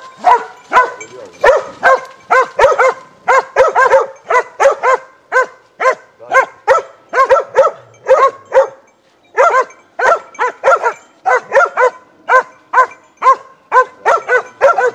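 Hunting dog barking steadily at a downed wild boar, about two to three short barks a second, with a brief break about nine seconds in.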